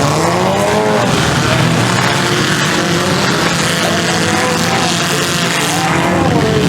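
Several demolition derby car engines running hard at once, their pitch rising and falling as they rev up and ease off.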